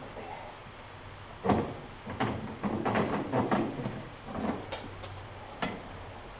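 Heavy metal parts of a lathe's motor drive assembly being handled and fitted: a sharp knock about a second and a half in, then a cluster of clunks and scraping, and a few lighter clicks near the end.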